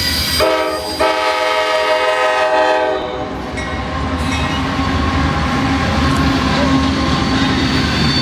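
Freight locomotive horn sounding a short blast and then a longer one of about two seconds, over the steady rumble and clatter of a CSX coal hopper train rolling past, with a faint squeal of wheels.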